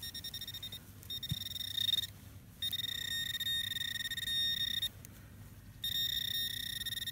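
Metal detector pinpointer alerting on a coin buried in a dug soil plug. It beeps rapidly at first, then gives a high steady tone that cuts out and comes back three times as the probe is moved through the soil.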